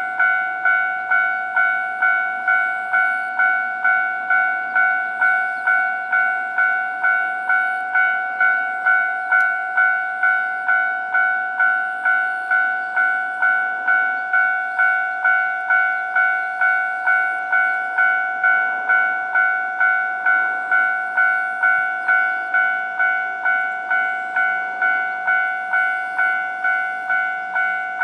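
Japanese railway level-crossing warning bell ringing its electronic two-tone clang, about two even strikes a second, each ringing briefly before the next: the signal that a train is approaching.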